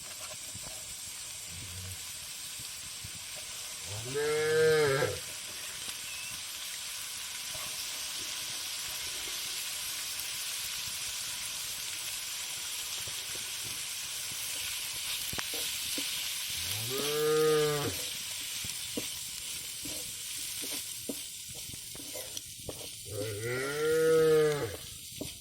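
A cow mooing three times, each call about a second long and rising then falling in pitch. A steady sizzle of frying runs underneath.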